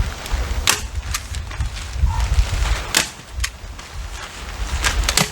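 A stapler snaps staples through house wrap into the wall sheathing, about six sharp clicks at irregular spacing. Under them is a low wind rumble on the microphone.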